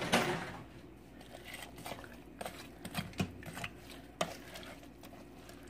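A metal ladle stirring soup ingredients and broth in a stainless steel Instant Pot inner pot: liquid sloshing, with a few sharp clinks of the ladle against the pot.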